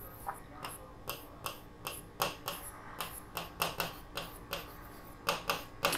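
Light, sharp clicks of a pen tapping the writing surface during writing, about three a second at uneven spacing.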